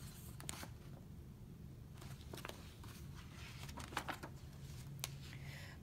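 Faint rustles and soft taps of a picture book's paper pages being handled and turned, over a steady low hum.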